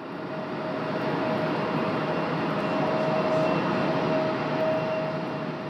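Jet airliner's engines as the plane flies by: a steady roar with a held whine. It grows louder over the first second, holds, and eases off near the end.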